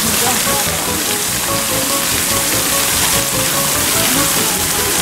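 Steady water noise from a polar bear swimming and diving in its pool, with background music of short separate notes laid over it.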